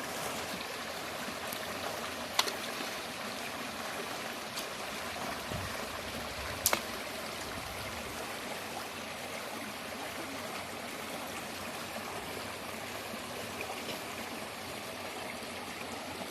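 A natural river or stream flowing, a steady rush of running water. Two sharp clicks cut through it, about two seconds in and again near seven seconds.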